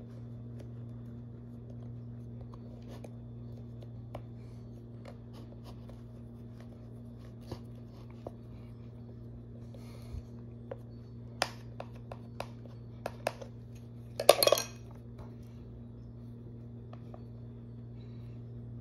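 Sculpting tools clinking and tapping on a hard work surface: scattered sharp clicks that grow more frequent, then a short louder clatter about three-quarters of the way through. A steady low hum runs underneath.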